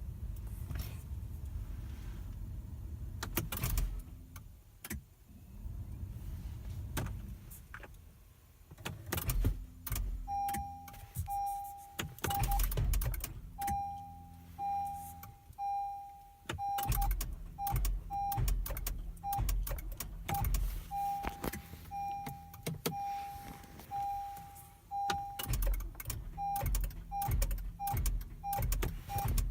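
Clicks and knocks in a 2017 Acura MDX that will not start, joined about ten seconds in by a warning chime beeping over and over at one steady pitch. The owner guesses at a weak battery or a starter fault.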